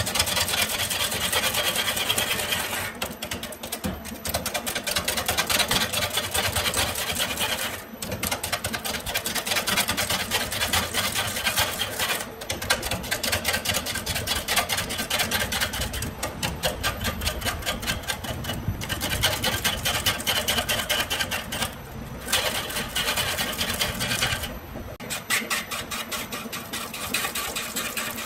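Wood lathe spinning a length of bamboo while a hand-held turning tool cuts into it, making a rapid, steady chattering of ticks over the motor's run. The chatter breaks off briefly several times, at about 3, 8, 12, 16, 22 and 25 seconds in, and then resumes.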